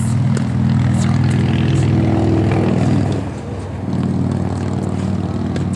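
Loud, steady low-pitched engine drone that dips briefly about three seconds in, with a few faint sharp clicks over it.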